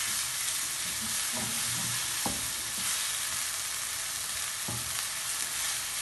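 Chopped onions and green chillies sizzling steadily in hot oil in a non-stick wok, stirred with a wooden spatula that scrapes against the pan now and then. The onions are being softened without browning dark.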